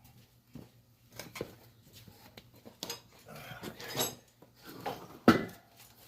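Irregular metallic clinks and knocks of hand tools being handled during tyre work, with one louder knock about five seconds in.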